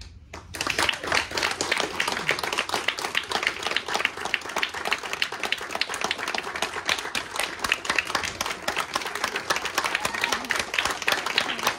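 Audience applauding at the end of a play, starting about half a second in and carrying on steadily.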